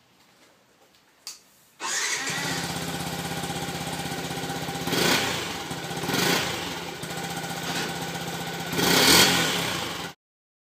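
Yamaha WR 125 single-cylinder motorcycle engine starting about two seconds in, then idling with three short blips of the throttle, the last one the longest. The sound cuts off suddenly near the end.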